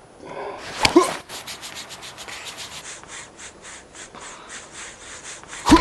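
Rapid, even rubbing or scraping strokes, about six a second, after a sharp swish about a second in. A louder sharp hit comes near the end.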